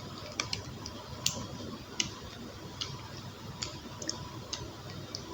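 Screwdriver tightening the cord-clamp screws on a replacement extension cord plug: faint, irregular small clicks of the bit and plastic plug body as the clamp is drawn down on the cord.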